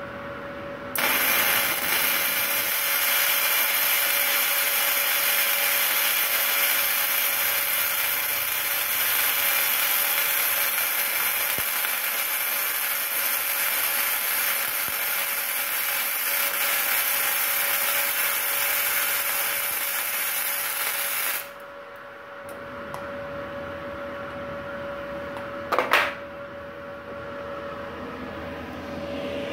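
Gasless flux-cored MIG welding arc on a Multipro MIG-MAG 200 GSP welder, 0.8 mm flux-core wire, burning steadily for about twenty seconds. It starts about a second in and cuts off suddenly. A faint steady whine runs beneath it, and there is a single sharp click a few seconds after the arc stops.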